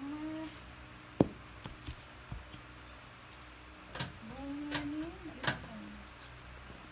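Sharp clicks and knocks of a metal batik printing block (cop) being handled, dipped in wax and stamped onto the cotton: one loud knock about a second in, then lighter taps scattered through.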